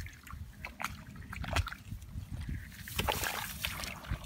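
Wet squelching and sloshing of bare feet and hands in shallow paddy mud and water, with scattered sharp little clicks and a denser wet patch about three seconds in.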